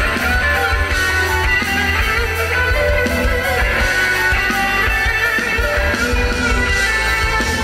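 A live band plays an instrumental passage led by electric guitar, over a heavy, steady low bass, with no singing.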